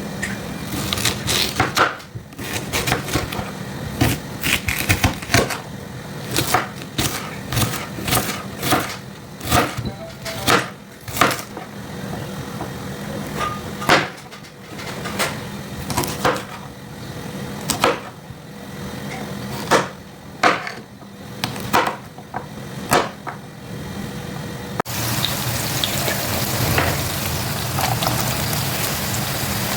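Irregular knocks and taps of hand work on a wooden surface during food preparation, some sharp and loud. About 25 seconds in, they give way abruptly to a steady hiss.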